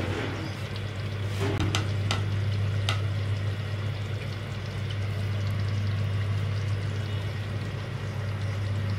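Chicken qorma simmering over low heat, its oil separated from the gravy, with a steady sizzle and a few light clicks in the first three seconds, over a steady low hum.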